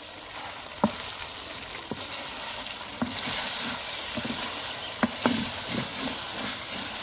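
Chicken and chopped tomatoes sizzling in hot oil in a metal pot while a spoon stirs them, knocking and scraping against the pot several times. The sizzle grows louder about three seconds in.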